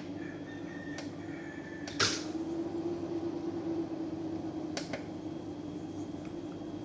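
Steady low hum of an off-grid solar inverter working hard under a cooktop's load, near its full capacity. A few light clicks break it, the sharpest about two seconds in.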